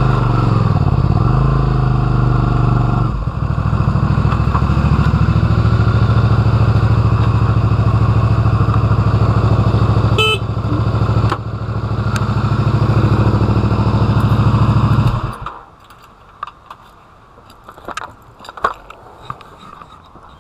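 Honda VT250 Spada's V-twin engine slowing with a few pitch changes, then idling steadily before it is switched off and cuts out about three quarters of the way through. A few light clicks and knocks follow.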